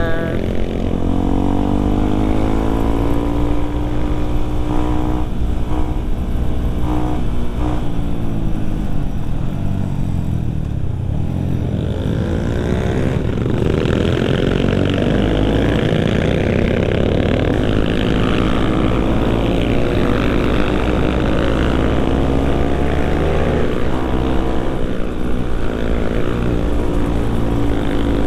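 Yamaha WR155R's single-cylinder engine running under way, its revs rising and falling with the ride. The revs drop low about eleven seconds in before climbing again.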